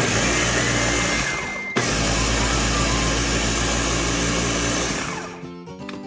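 Ninja blender motor running at high speed, grinding a dry mix of roasted peanuts, corn flour and sugar into paçoca powder. There is a brief break about two seconds in, and the motor winds down near the end.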